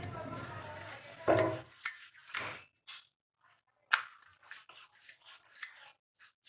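Wooden rolling pin rolling dough back and forth on a stone board, a quick run of uneven rolling strokes, a short pause about three seconds in, then a second run.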